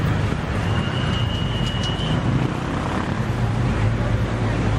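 Street traffic noise with a steady low engine hum from nearby vehicles, plus a thin high tone for about a second and a half near the start.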